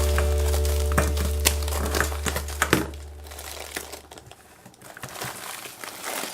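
Crinkling and crackling clicks from something being handled, over background music with a held low note that fades out about four seconds in.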